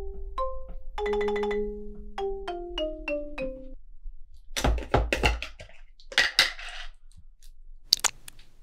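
A short music cue of quick single notes, most of them stepping downward, lasting about four seconds. Then comes a few seconds of handling noise: a plastic screw-top jar of hair-relaxer cream being opened and fingers dipping into it, in several short scraping, rustling bursts.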